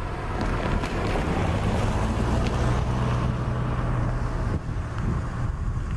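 Wind rumbling on the microphone over a low, steady hum from a distant train that grows a little louder through the middle.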